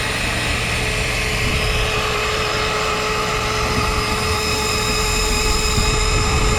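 Steady machine drone of a boat's engine running, a low rumble under several constant high whining tones.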